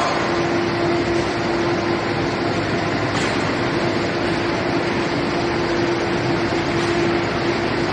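Steady mechanical running noise of an aluminium billet homogenizing furnace installation, with a constant mid-pitched hum over a broad roar.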